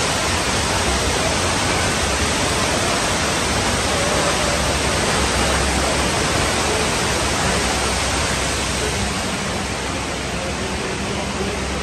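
A large torrent of water rushing and splashing down steps and across a floor in a staged flood, a steady, loud wash of noise that eases a little near the end.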